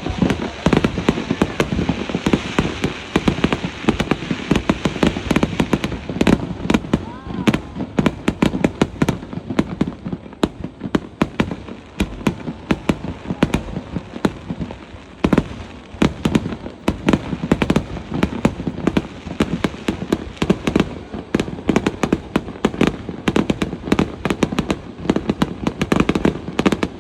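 A fireworks display: shells bursting in quick, continuous succession, many sharp bangs and crackles a second with no let-up, and people's voices underneath.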